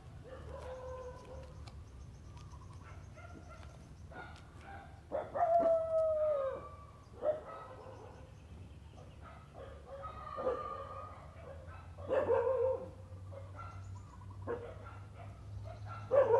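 Several drawn-out animal calls, the longest and loudest about five seconds in, sliding slightly down in pitch, with shorter calls later, over a low steady hum.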